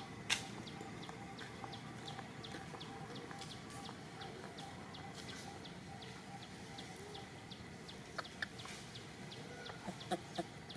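A bird chirping rapidly in short high chirps, about three a second, over a steady outdoor background, with a sharp click just after the start and a few more clicks near the end.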